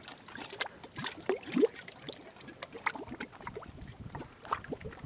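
Mud pots bubbling: irregular plops and gurgles as carbon dioxide gas bursts up through thick mud, the loudest about one and a half seconds in.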